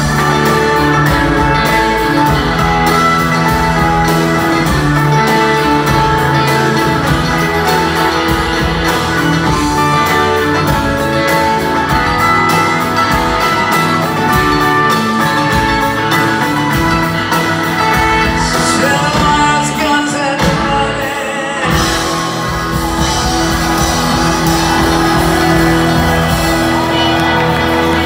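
Live band playing a rock song in a large hall, with acoustic guitar, upright bass, keyboards and drums. The sound thins out briefly about twenty seconds in, then the full band comes back.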